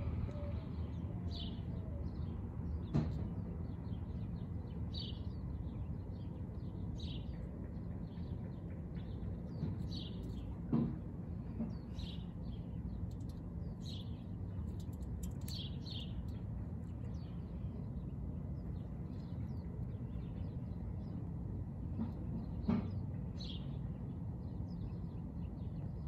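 Small bird chirping over and over, a short high chirp about every second or so, over a steady low background rumble. Three brief knocks break in, the loudest about halfway through.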